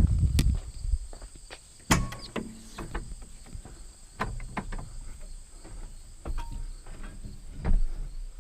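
Footsteps and scattered knocks and clunks of someone moving about and handling things, with one sharp knock about two seconds in. A steady high-pitched insect buzz runs underneath.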